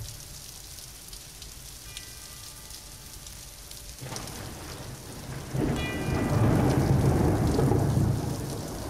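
Thunder rumbling over steady rain. The rumble builds about four seconds in, is loudest for about three seconds, then eases near the end.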